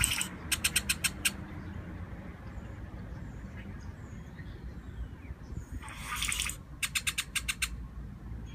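A bird calling twice, each call a short rushing hiss followed by a quick run of about six sharp clicking notes, over a low steady rumble.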